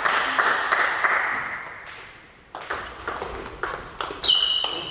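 Table tennis rally: the ball clicking off the bats and the table, a few sharp hits a second. A brief high squeak comes about four seconds in.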